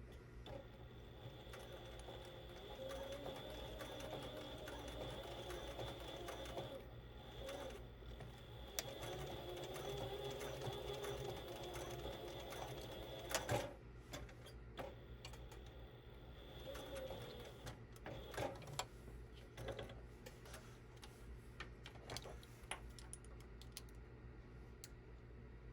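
Sewing machine stitching in runs of several seconds: two longer runs in the first half and a shorter one later, with a few sharp clicks between them.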